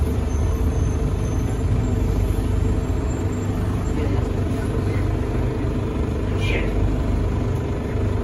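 Cabin noise inside a Bombardier Innovia APM 100 rubber-tyred people-mover car running along the guideway: a steady rumble with a low motor hum. A brief high squeak comes about six and a half seconds in.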